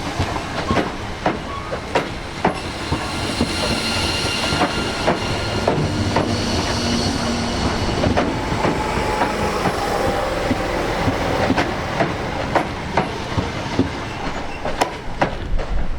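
Train wheels clacking over rail joints in a steady run of knocks, with a faint high wheel squeal for a few seconds.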